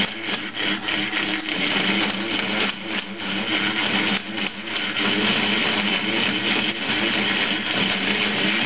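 JET JMD-1 benchtop mill running a slitting saw through a cast-iron holder, cutting a lengthwise slot. The motor hums steadily under a dense cutting noise that dips briefly now and then as the cut loads and eases.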